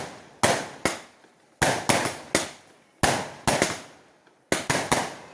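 Fireworks going off: about a dozen sharp, loud bangs in irregular clusters, each fading away over about half a second.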